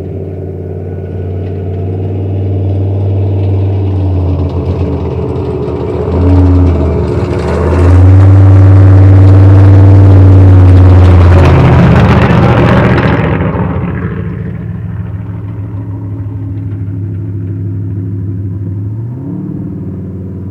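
Off-highway vehicle engine running loud and close. It swells to a peak in the middle with a rush of noise, then eases off. Near the end the engine pitch briefly rises as it revs.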